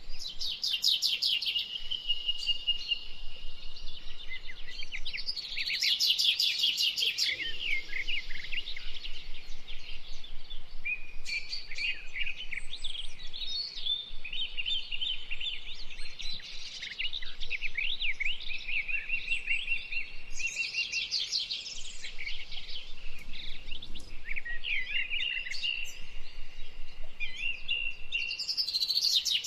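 A songbird singing a long, varied song of rapid chattering notes and trills mixed with short held whistles, with hardly a pause.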